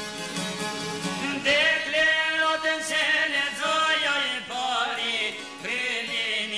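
Kosovo Albanian folk song: plucked-string accompaniment alone at first, then male singing enters about a second and a half in with long, wavering held notes over the strings.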